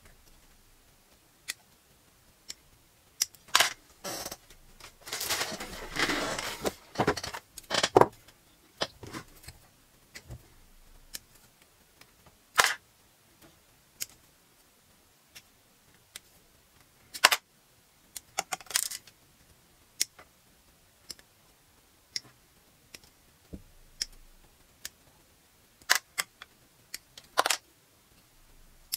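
Plastic model-kit runners being clipped with side-cutting nippers: sharp snips and clicks at irregular intervals, with a longer stretch of rattling and rustling of the plastic runners being handled about a quarter of the way in.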